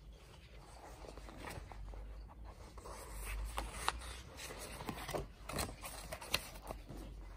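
Paper pages of a paperback book rustling as they are handled and turned by hand, with a few sharp paper flicks in the second half.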